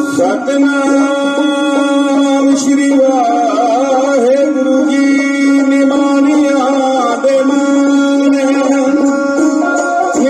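Dhadi music: a sarangi bowing a wavering melody over a steady drone, with dhadd hand drums and male singing.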